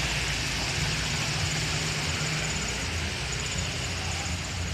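Motorbike engines running in street traffic, a steady low hum under an even hiss.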